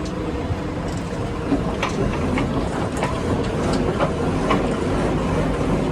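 Heavy diesel machinery, such as a JCB backhoe loader, running steadily, with irregular sharp metallic clicks and clanks over the engine.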